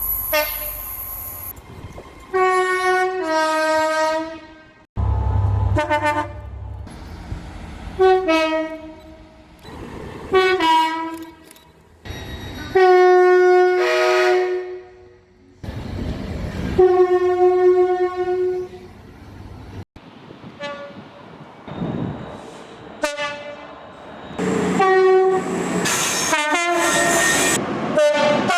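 A run of two-tone train horns from different locomotives and multiple units, in short clips cut together. Each horn sounds a high note followed by a lower one, some blasts short and some held for a couple of seconds. Passing trains rumble and clatter between the blasts.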